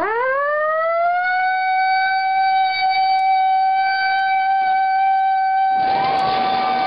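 A man's voice imitating a tornado siren: a rising wail that levels off into one long held tone. About six seconds in, a loud rush of blowing air joins it.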